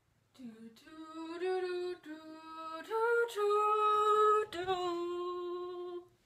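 A woman singing a short phrase of a few long held notes. The notes step up to the highest and loudest one in the middle, then fall back to a lower held note that stops just before the end.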